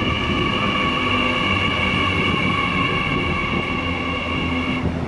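Hyundai Rotem Intercity Fleet D set electric double-deck train passing close by: a steady rumble of wheels on rail with a high whine in several pitches. The whine cuts off suddenly near the end.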